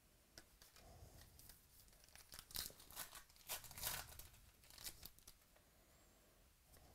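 A trading-card pack wrapper torn open and crinkled by hand: a quick run of rips and crackles from about half a second to five seconds in, loudest in the middle.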